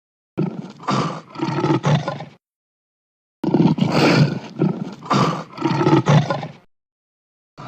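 Big-cat roar sound effect, a lion-style roar offered as the voice of the extinct Beringian cave lion. It comes as two roaring bouts, each a run of several heavy pulses, separated by about a second of dead silence.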